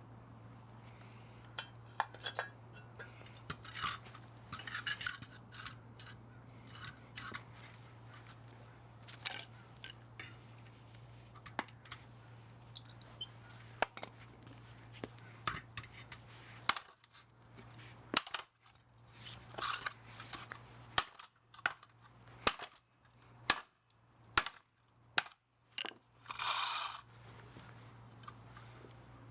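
Hand tools working on the metal parts of a dismantled electric motor: scattered sharp clicks, clinks and short scraping strokes, busier and louder in the second half, over a steady low hum.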